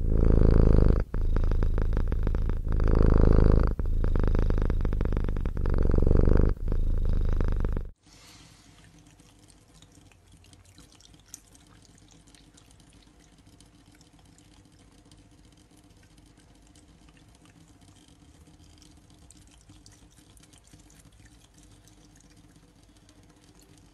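A domestic cat purring loudly, the purr swelling and breaking with each breath for about eight seconds, then stopping abruptly. After that, a thin stream of tap water trickles faintly as a cat licks from it.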